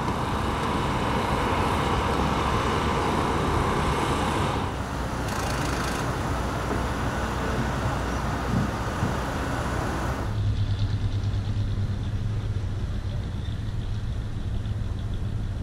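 Steady outdoor rush of road traffic. About ten seconds in it changes abruptly to a quieter steady low hum.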